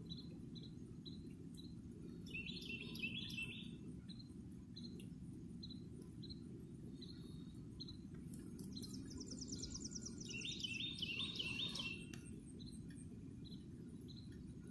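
Faint dawn birdsong: a bird repeats a short high chirp about twice a second, with louder warbled phrases about two seconds in and again near eleven seconds, and a fast high trill around nine seconds. A steady low rumble runs underneath.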